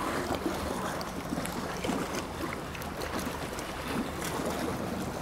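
Seaside ambience: sea waves washing with wind on the microphone, and a faint steady low hum under it.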